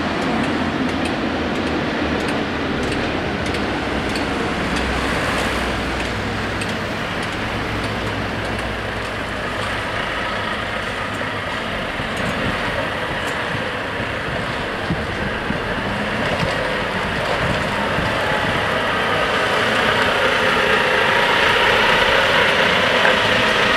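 Road traffic moving slowly over a level crossing: car engines and the diesel engine of a Volvo articulated lorry running at low speed, growing louder near the end as the lorry passes close.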